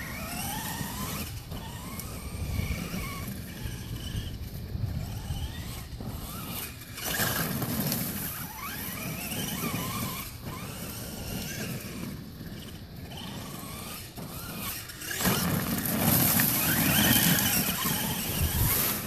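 Brushless-converted Traxxas E-Maxx RC monster truck (6-pole 1900kv motor on a 4-cell pack) driving on a dirt track: the motor's whine rises and falls in pitch with the throttle. It is louder for a moment about seven seconds in and again from about fifteen seconds on.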